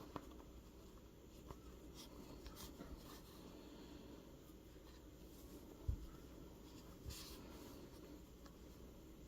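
Faint rustling and scratching of yarn being drawn through crochet stitches and the piece being handled while an ear is sewn on, with a few small clicks and a soft thump about six seconds in.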